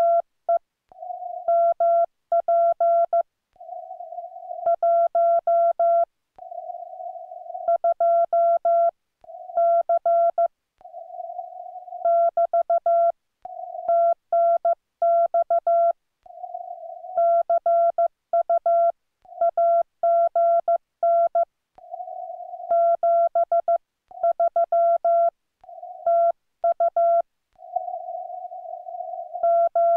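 Morse code sidetone from a Yaesu FTDX10 transceiver: one steady mid-pitched beep keyed on and off by hand into dots and dashes at a slow speed of about 15 words per minute. It spells out the sign-off of a CW contact, "TNX CU AGN 73 TU".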